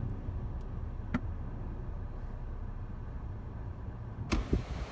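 Low, steady rumble of storm wind, with a faint click about a second in and a sharp knock near the end, after which a brighter rushing hiss comes in.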